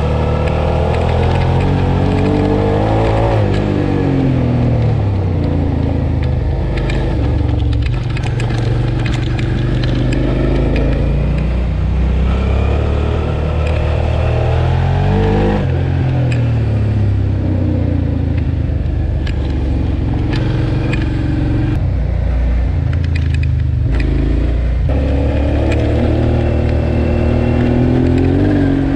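Suzuki V-Strom 650's V-twin engine running under way, the revs rising and falling several times as the throttle is opened and closed, with clear drops in pitch about three seconds in and about halfway through.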